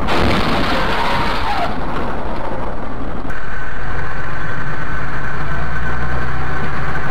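Dashcam audio: a loud rush of noise for about a second and a half, then, from about three seconds in, a vehicle engine droning steadily with a thin steady whine over it.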